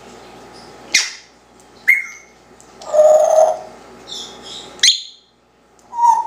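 Congo African grey parrot giving a series of about five short whistles and sharp calls with pauses between them, including one longer, lower held note about three seconds in.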